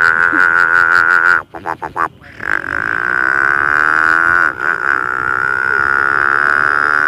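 A man imitating a Yamaha scooter engine with his voice: a buzzing, wavering engine note that breaks off about a second and a half in with a few short sputters, then picks up again and holds steady as the scooter is made to climb a hill.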